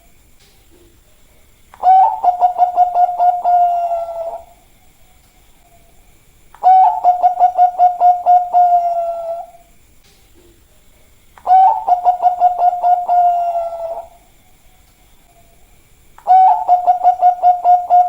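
Bangkok-line zebra dove (perkutut) cooing: four song phrases about five seconds apart. Each opens with a quick run of stuttering notes and ends in a long held coo.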